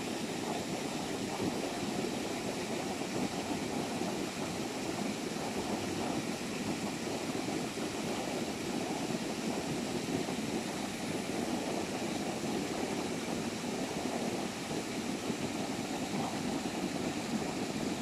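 Water of a small waterfall on a mountain stream rushing steadily.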